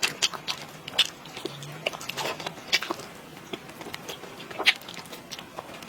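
Close-up eating sounds: a person chewing with the mouth open, wet smacks and clicks coming irregularly, several a second.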